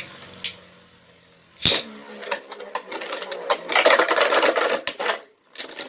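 A sharp plastic clack as a 3D-printed Beyblade is ripcord-launched, then about three seconds of rattling and scraping as the spinning top runs in the plastic stadium. The rattling grows louder before it cuts off suddenly.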